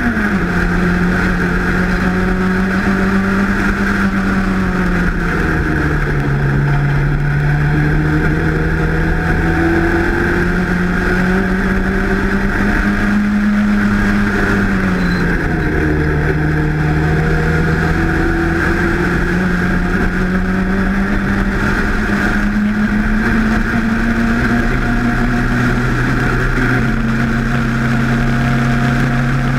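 Race car engine running hard at high revs. Its pitch drops sharply a few times as the gears change, then climbs steadily as the car pulls through each gear.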